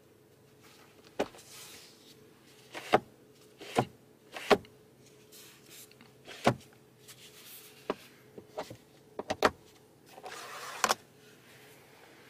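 Driver's sun visor of a 2022 Genesis GV80 being handled: about ten sharp plastic clicks and knocks, irregularly spaced, as the vanity-mirror cover is snapped open and shut and the visor is swung down and round to the side, with a couple of brief rustles.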